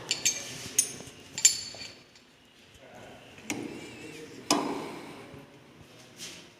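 Steel packing pieces and the cutting tool clinking against the lathe's tool post while the tool height is set. There are a few sharp metallic clinks with a brief ring in the first second and a half, then two duller knocks about three and a half and four and a half seconds in.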